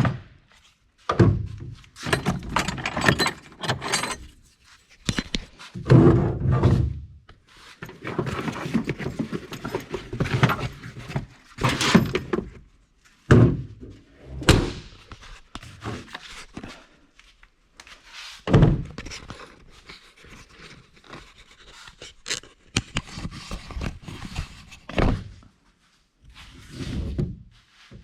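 Irregular thunks and clatter from tools and metal parts being handled, with quiet gaps between them.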